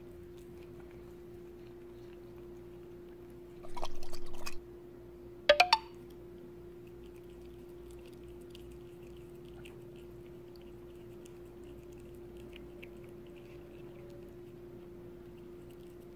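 A cat chewing and licking fish from a person's hand, faint small wet clicks, over a steady low hum. About four seconds in comes a loud noise lasting under a second, then two sharp clicks a second later.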